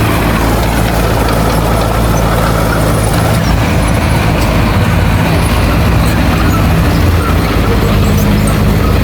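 Heavy diesel engine of earthmoving machinery running steadily, with a low, even engine hum under a broad mechanical noise.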